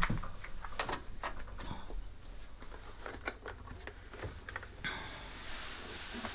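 A few light knocks as a plastic tub is handled against the steel sandblasting cabinet, then, about five seconds in, a steady hiss as 60–80 grit aluminium oxide blasting media starts pouring from the tub into the cabinet.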